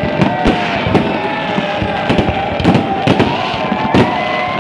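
New Year fireworks going off in a rapid, irregular string of bangs and crackles, with a few long steady tones running underneath.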